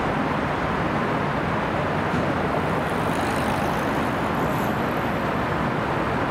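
Steady, even rumble of motor vehicles, with no siren or horn sounding.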